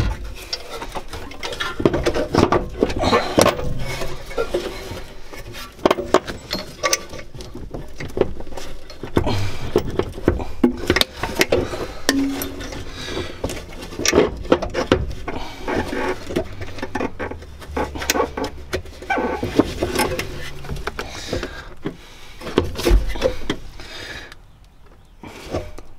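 Irregular knocks, clicks and scrapes of a classic Mini's heater unit being handled and worked up into place under the dashboard, hooking onto its latches and pivoting up against the bulkhead.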